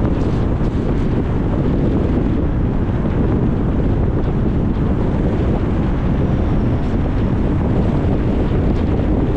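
Steady road noise of a car driving: an even rumble of tyres and wind, heaviest in the low end, with no distinct events.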